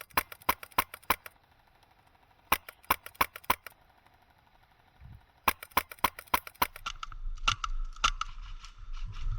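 Airsoft guns firing in quick strings of sharp shots, about five a second, in three bursts with short pauses between them. Near the end a steady whine and a low rumble come in under a few more shots.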